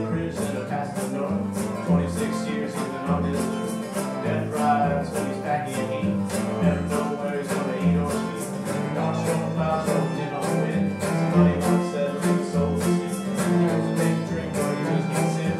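Live acoustic band playing a folk/bluegrass-style tune: strummed acoustic guitar and bowed fiddle over a steady pulse of bass notes, the strumming keeping an even beat.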